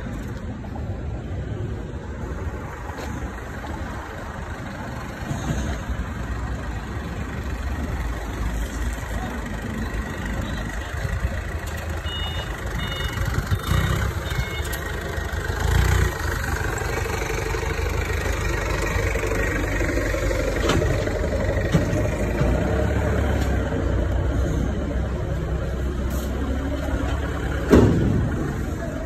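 Forklift engine running, with a few short high beeps about twelve seconds in and a loud knock near the end.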